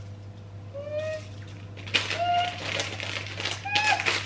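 Clear plastic bag rustling and crinkling as pom poms are shaken out of it, with three brief high-pitched squeaks about a second apart.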